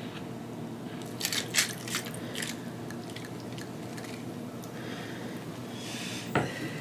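A sparkling drink being poured from a bottle into a glass: a few light clinks and clicks of bottle and glass, then a soft fizzing hiss.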